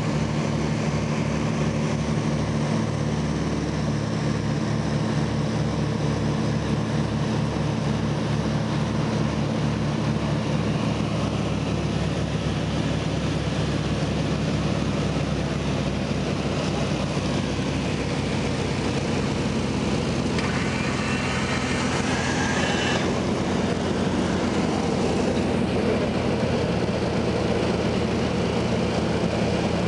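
Cabin noise of a Britten-Norman BN-2 Islander in flight: its twin piston engines and propellers drone steadily with a beating note that shifts slightly in pitch a few times. A brief higher hiss comes in about two-thirds of the way through.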